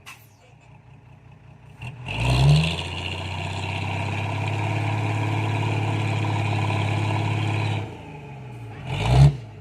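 Heavy diesel engine revving up sharply about two seconds in and running steadily under load for several seconds, then easing off and revving briefly once more near the end.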